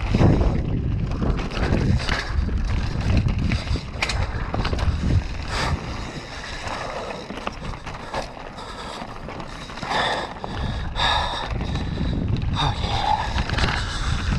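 Downhill mountain bike riding fast over a dirt trail: wind buffets the microphone with a heavy rumble, and the tyres and bike rattle and knock over roots and bumps.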